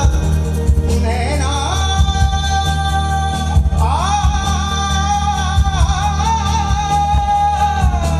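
A man singing solo into a microphone over instrumental backing with a steady beat. His voice slides up into a note about a second in, breaks off briefly, then slides up again and holds one long high note until near the end.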